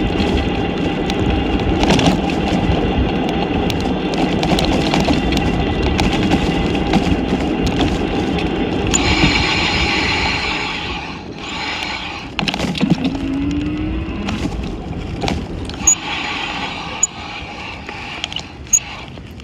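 Car cabin noise while driving: a steady low road and engine rumble. About nine seconds in it turns hissy for a moment, then drops quieter, with scattered clicks and knocks after that.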